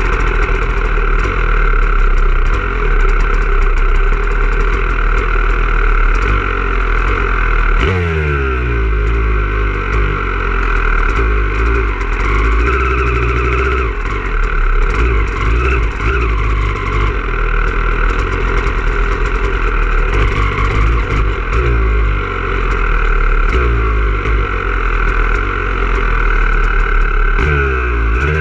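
Motocross bike engine running at low speed, with the throttle opened and closed several times so the pitch rises and falls.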